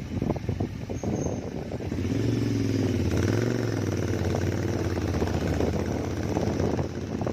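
Royal Enfield GT650's 648 cc parallel-twin engine running through an aftermarket Gursewak short exhaust while riding. It comes up louder about two seconds in, and its pitch rises and dips briefly a second later.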